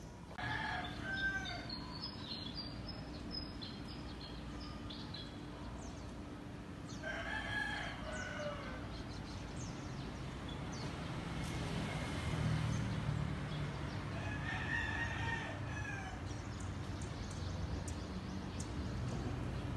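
A rooster crowing three times, about seven seconds apart, each crow lasting a second or two, over a steady low hum. A few short high chirps sound in the first few seconds.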